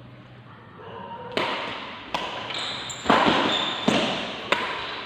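Badminton rally: rackets striking a shuttlecock, five sharp hits spaced roughly a second or less apart, starting about a second and a half in, each one echoing in the hall.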